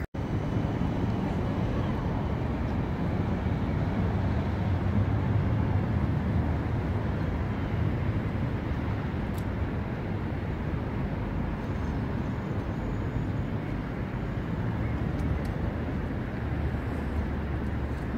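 CAF Urbos 100 tram running, a steady low rumble of wheels on rail and traction equipment.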